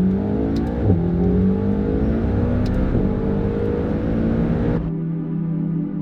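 McLaren GT's twin-turbocharged V8 accelerating hard, its pitch climbing, dropping at an upshift about a second in and again about three seconds in, then climbing again until it cuts off suddenly about five seconds in.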